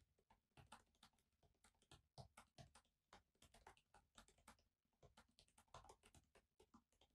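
Faint, irregular typing on a laptop keyboard: quick runs of key clicks, several a second, broken by short pauses.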